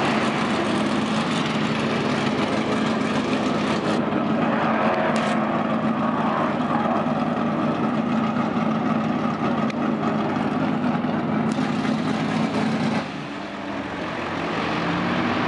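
Off-road racing vehicle engine running steadily under way, a constant drone with a rushing noise over it. It eases off abruptly about 13 seconds in, then picks up again near the end.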